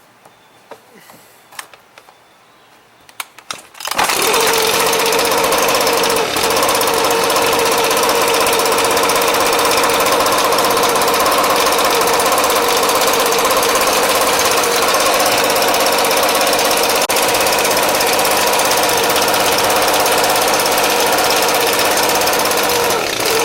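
Echo ES250 blower-vac's small two-stroke engine catches about four seconds in and runs steadily and loudly, after a few light clicks of handling. Its no-spark fault has been traced to a bad on/off switch.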